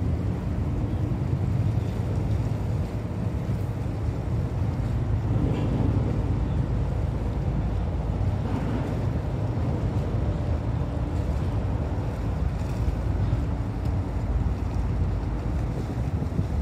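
Wind buffeting the microphone, with choppy sea water lapping, over a low steady rumble.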